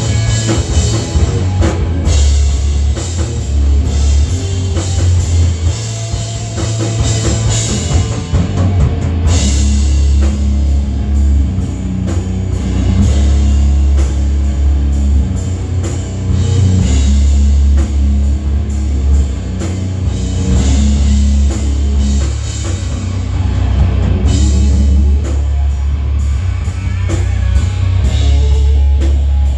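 Live rock band playing loudly: electric guitar, electric bass and a drum kit, with a heavy low end and fast, regular cymbal strikes driving the beat.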